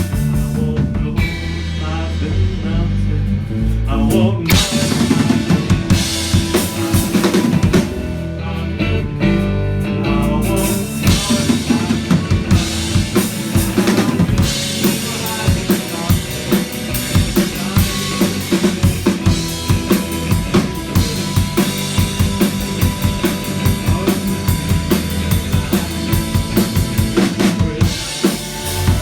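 Live rock band playing an instrumental passage without vocals, the drum kit prominent with bass drum and snare over sustained bass notes; the drumming grows busier and more regular about a third of the way through.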